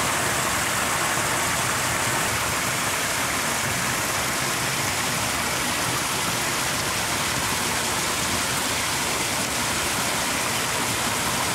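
Steady rushing hiss of flowing muddy water, even and unbroken.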